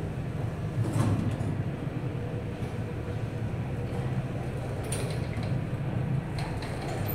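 1970s UKM passenger lift travelling in its mesh shaft: a steady low hum with a couple of faint knocks and rattles, about a second in and again near five seconds.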